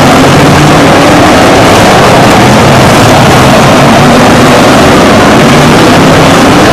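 Several figure-8 race cars' engines running hard as the pack passes close by, a loud, constant mix of engines that overlap and shift a little in pitch.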